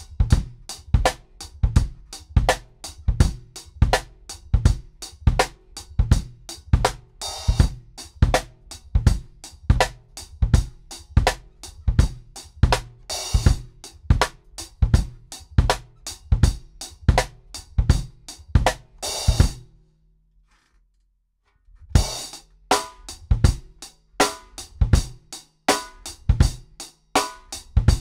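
Drum kit playing a steady groove of bass drum and snare, the snare choked by the drummer's left hand resting on the head to get a tight sound, with a cymbal hit about every six seconds. The playing stops for about two seconds near the three-quarter mark, then starts again.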